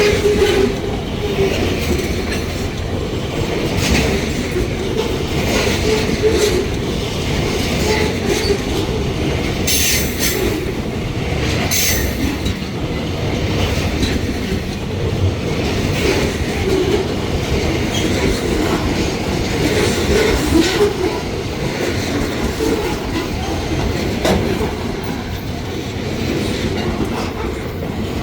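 Freight train wagons rolling past with a steady low rumble of wheels on rail and scattered clicks from the rail joints. Short high wheel squeals ring out twice, about ten and twelve seconds in.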